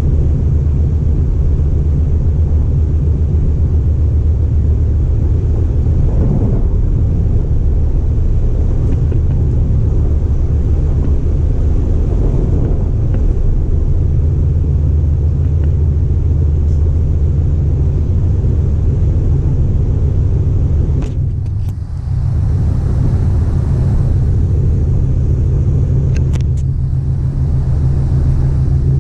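MTR East Rail line R-Train electric multiple unit running along the line: a steady low rumble of wheels on rail and running gear. A few sharp clicks come about two-thirds through and again near the end, with a brief dip in the rumble between them.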